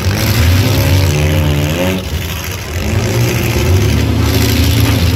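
Demolition derby car engines running hard over a steady low engine sound, one revving up in a rising whine twice, each time for a second or two.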